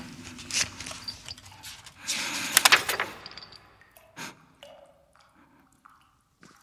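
Horror-film foley of scattered clicks and scrapes, with a louder rustling burst about two seconds in, then fading almost to silence near the end.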